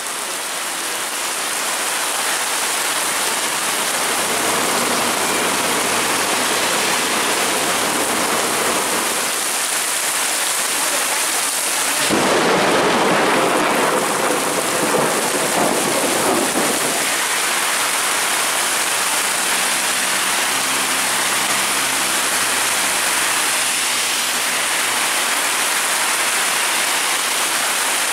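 Heavy thunderstorm downpour: a dense, steady hiss of rain falling on roads and pavement. About twelve seconds in it changes abruptly to a closer, slightly louder wash of rain pelting the pavement.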